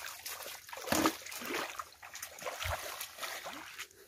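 Shallow, muddy stream water splashing and trickling as a person wades in it and works his hands through it, with the loudest splash about a second in.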